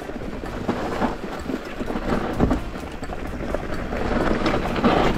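Rocky Mountain Instinct mountain bike rolling down a stony forest singletrack: tyres crunching over loose stones and the bike rattling over the bumps, with one heavier thump about halfway through. Wind rushes on the action-camera microphone.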